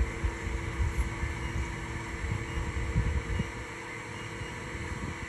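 TRAK FHM7 CNC bed mill spindle running at about 3,500 RPM: a steady hum with an uneven low rumble beneath it.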